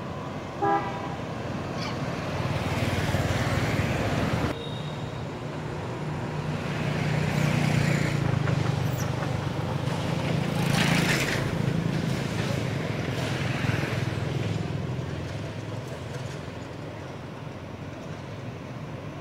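Road traffic: cars passing one after another, each swelling and fading over a steady engine hum.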